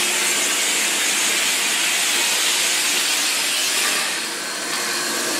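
Steam hissing steadily from the Victorian Railways Y-class steam locomotive Y112; the hiss eases a little about four seconds in.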